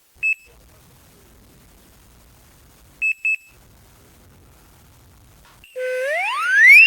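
Osaka Gas Kemupiko home smoke alarm on its long-press test: a short high beep, then a quick double beep about three seconds later. Near the end the loud alarm tone starts, a sweep that rises steeply in pitch and repeats.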